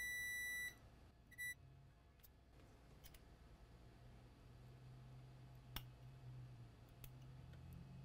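Multimeter in diode mode beeping: a steady high beep that cuts off under a second in, then one short beep, as the probe touches a MOSFET pad shorted to ground. After that, near silence with a faint low hum and one faint click near six seconds.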